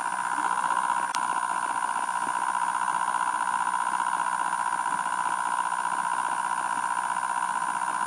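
Homemade pulse motor running at speed: a steady high buzz from the ferrite-core coil being pulsed rapidly by the reed switch as the magnet rotor spins. One faint click about a second in.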